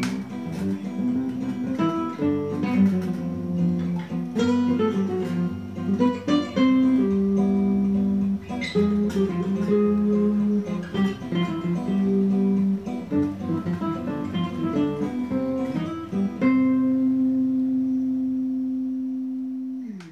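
Plucked-string guitar music, a run of picked notes that ends about three-quarters of the way through on one long held note, which fades and is cut off at the very end.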